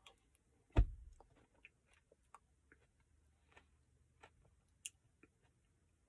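A person eating ice cream from a paper cup with a plastic spoon: quiet mouth and chewing sounds and small scattered clicks, with one louder thump about a second in.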